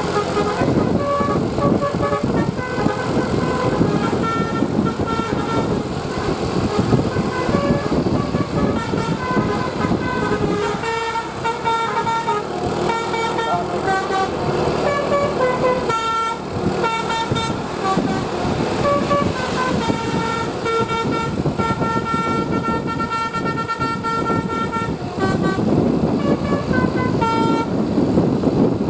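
Bus telolet basuri horn, a multi-note air horn, playing a tune in a run of held, changing notes, with a brief pause partway through, over a steady rumble of noise.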